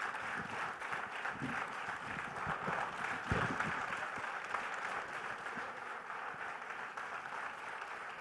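Audience applauding steadily after a talk, with a single low thump a little over three seconds in.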